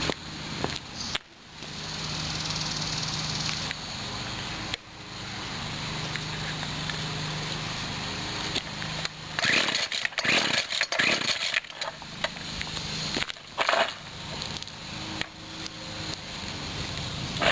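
Small two-stroke engine of a 1997 Husqvarna 24cc straight-shaft string trimmer, cold-started and running, with a stretch of uneven, sputtering bursts about two-thirds of the way through. The engine has a faulty carburettor diaphragm that makes it bog down when the throttle is opened fully.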